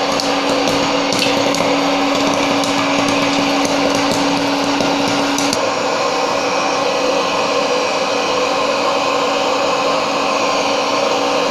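Libra hot-air popcorn maker's blower running steadily, with scattered sharp pops and ticks from the last kernels popping and landing in the steel bowl. The pops stop about halfway through, and the blower keeps running.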